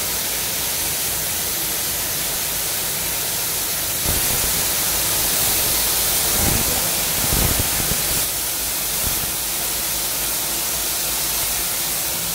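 Compressed-air spray gun hissing steadily as it sprays glaze onto a ceramic squat toilet pan. The hiss swells a little in the middle, with a couple of dull low thumps.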